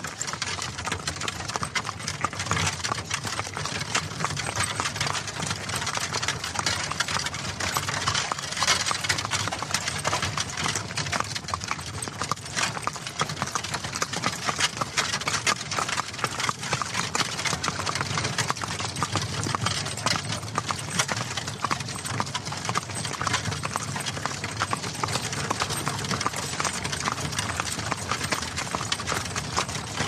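Hooves of two horses clip-clopping steadily as they pull a wagon, over the continuous rattle and rumble of the rolling wagon.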